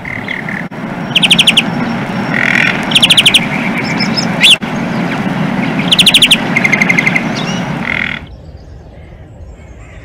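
European greenfinch singing: repeated rapid, ringing trills, three of them loudest, mixed with shorter twittering notes and one quick rising whistle near the middle. The song cuts off about eight seconds in, leaving faint outdoor ambience.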